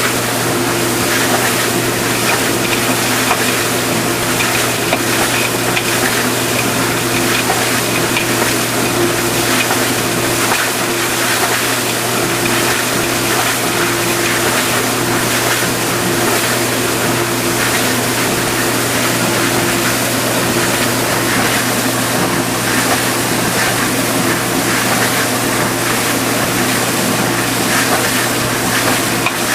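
Vintage KitchenAid Superba KDS-18 dishwasher running a wash cycle: a steady hum from the pump motor under the hiss and splash of water spraying inside the tub.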